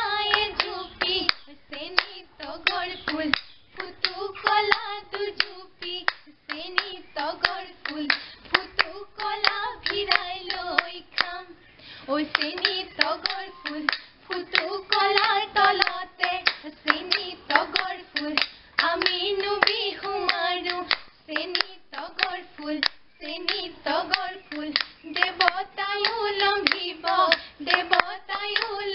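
Women singing a Bihu folk song (bihu naam) in Assamese without instruments, with steady rhythmic hand-clapping through the song.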